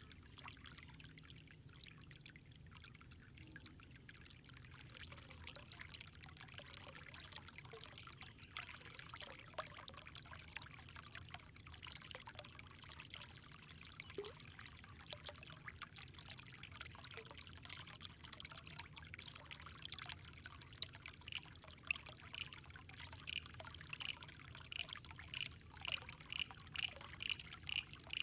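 Faint water trickling, with a fine crackle throughout. About two-thirds of the way in, a high chirp starts repeating about twice a second and grows louder near the end.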